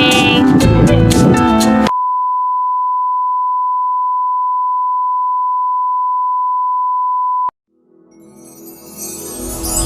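Background music that stops about two seconds in, replaced by a steady single-pitch electronic beep tone, like a 1 kHz test tone, lasting about five and a half seconds and cutting off suddenly. Soft music then fades back in near the end.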